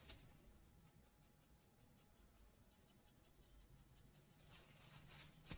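Faint quick scrubbing of a stiff flat acrylic brush on watercolour paper, lifting paint out of a wash, in a quick even rhythm of strokes with a couple of louder scuffs near the end.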